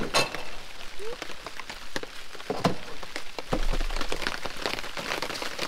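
Rain pattering on a tarp awning, a steady hiss dotted with many small drop hits. A couple of louder knocks sound about a quarter-second in and near the middle.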